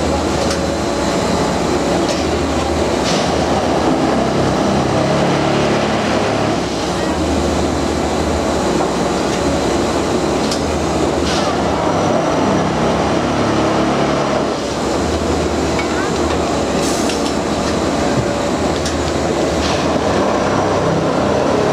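Austrian-built multiple tie tamper running: steady machinery noise with a low throb that comes and goes every second or two.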